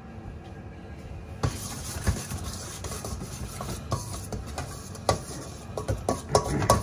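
A hand mixing oily pesto with seeds and semi-dried tomatoes in a stainless steel bowl, with scattered knocks and taps against the metal, starting about a second and a half in.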